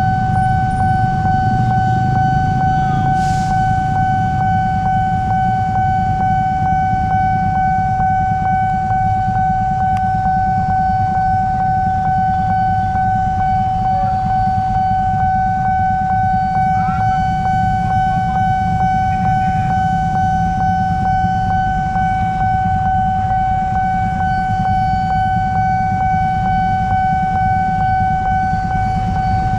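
Level-crossing warning alarm sounding one unbroken high tone, over the low rumble of motorcycles, cars and buses idling at the lowered barriers. A brief hiss comes about three seconds in.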